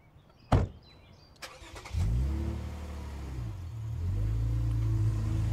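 A single sharp thump, then about two seconds in a car engine starts and runs, its pitch rising and dipping with light revving before settling.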